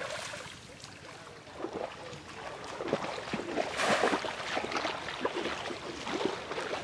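Shallow water splashing and sloshing as a man wades and plunges a bamboo polo fishing cage into it, with a run of short irregular splashes that grows loudest a little past the middle.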